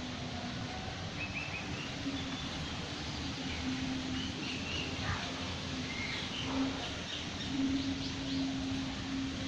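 Several birds chirping and calling in short notes over a steady outdoor noise, with a low hum that comes and goes underneath.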